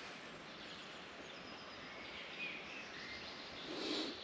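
Quiet woodland background with a few faint, short bird chirps, and a brief soft rustle near the end.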